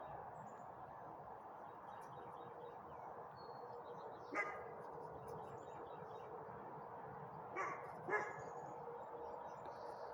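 German Shepherd puppy giving three short barks: one about four seconds in, then two in quick succession near the end.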